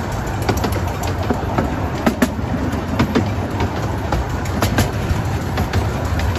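Miniature railway carriages running along the track: a steady low rumble from the wheels, with frequent irregular clicks and knocks as they pass over the rails.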